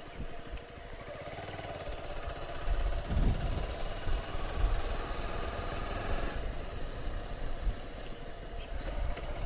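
Bajaj Avenger 220 Cruise motorcycle's single-cylinder engine running steadily while the bike rides along the road.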